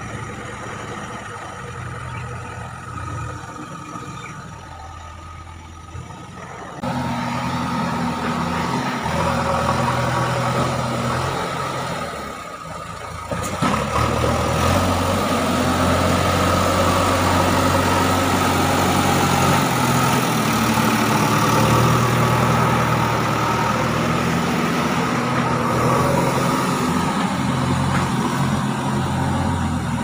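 JCB 3DX backhoe loader's diesel engine running steadily. It is fainter for the first several seconds, comes up louder about seven seconds in, and after a short drop around thirteen seconds works harder and louder for the rest.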